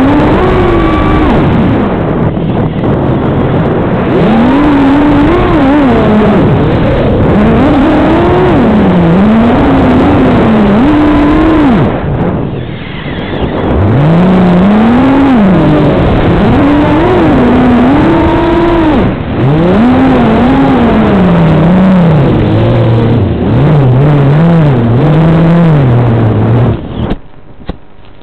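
5-inch FPV racing quadcopter's brushless motors and propellers, heard from the onboard camera's microphone, whining loudly with a pitch that rises and falls constantly as the throttle is worked. The motor sound cuts off suddenly near the end as the quad comes down in tall grass and is disarmed.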